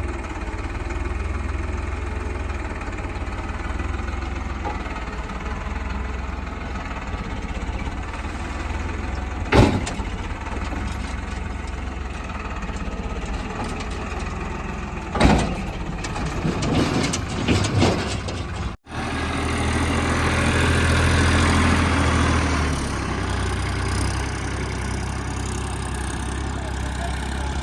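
JCB 3DX backhoe loader's diesel engine running steadily while it works, with a sharp knock about ten seconds in and a run of knocks and clanks around fifteen to eighteen seconds in. The sound breaks off abruptly, then the engine runs on, briefly louder for a couple of seconds.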